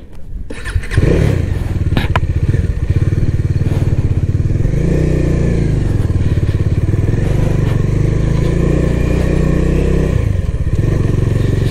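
Motorcycle engine running while riding, its pitch rising and falling with the throttle. A sharp click about two seconds in.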